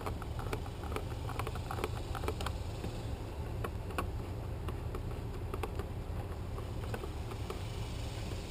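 Scattered small clicks and taps of hands working on an electrical outlet and its box, over a steady low hum.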